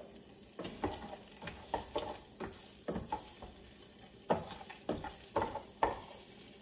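Frozen onion and bell-pepper pieces sautéing in a nonstick skillet, stirred with a spatula: irregular scrapes and taps of the spatula against the pan over a low sizzle.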